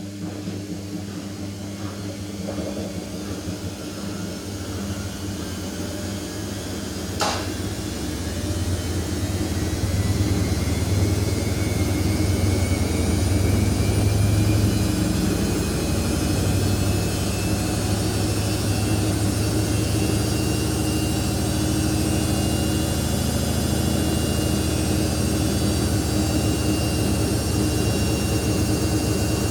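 Samsung P1271 washing machine's motor and drum spinning up in the spin cycle: a whine rising steadily in pitch as it grows louder over the first ten seconds, then holding at speed. One sharp click about seven seconds in.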